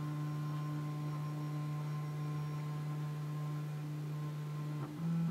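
Prusa i3 MK3S 3D printer's Z-axis stepper motors whining steadily as the X gantry travels down during its automatic homing and bed-levelling routine at the start of a print. The pitch steps up briefly near the end as the move changes.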